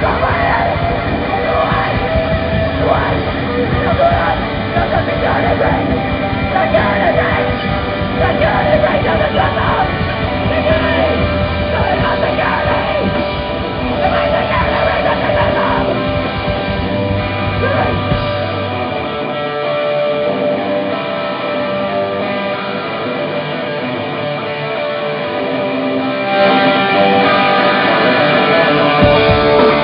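Punk rock band playing live: electric guitar, bass and drums, loud and dense. The deep bass drops out for several seconds past the middle, and the full band comes back in louder near the end.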